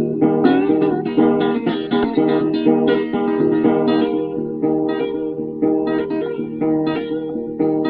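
Acoustic blues guitar played in a fast, steady run of plucked and strummed notes, an instrumental train imitation in a talking-blues piece.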